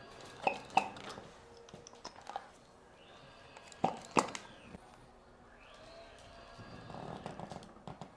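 Sharp pops in quick pairs, the loudest a little in and about four seconds in: joints cracking during a chiropractic spinal adjustment.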